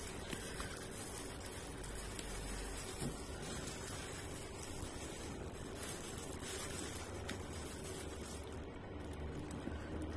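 A thin plastic food glove rustling and rice squishing as food is picked up by hand from a styrofoam box and eaten, over a steady hiss, with a few faint clicks.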